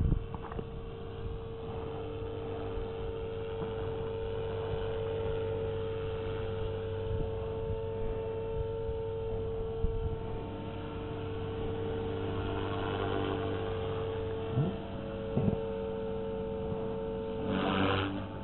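Blade 360 CFX RC helicopter in flight, heard from the ground: a steady whine from its electric motor and rotor holding one pitch, with a louder rush of noise near the end.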